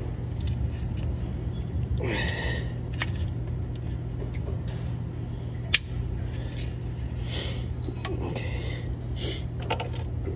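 Small metal clicks and short scrapes of hand tools working at a stuck crankshaft position sensor in a GM truck engine's front cover, with one sharper click near the middle, over a steady low hum.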